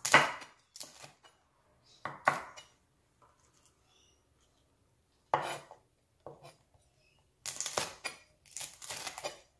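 Chef's knife chopping fresh chillies on a wooden cutting board: sharp knocks of the blade against the board, one at a time or in short runs, with pauses between.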